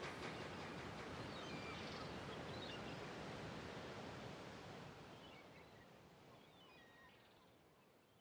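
Outdoor ambience: a steady, even wash of noise with a few faint, short bird chirps, fading out gradually.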